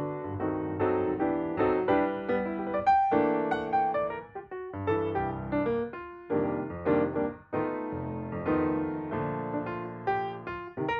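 Background piano music, a light melody of quickly changing notes.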